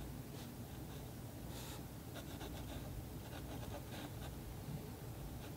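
Pencil sketching on watercolor paper: quiet, scratchy strokes, short and repeated, coming more often from about two seconds in.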